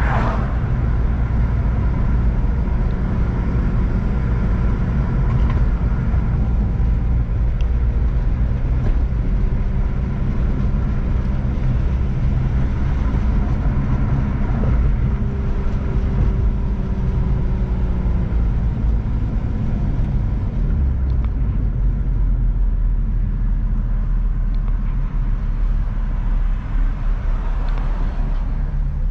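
Infiniti G35's V6 engine and road noise heard while driving, a steady low drone with the engine note shifting about twenty seconds in.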